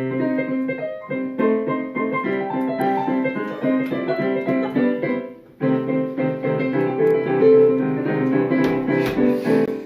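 Piano music, a run of sustained notes that breaks off briefly about halfway through and then picks up again.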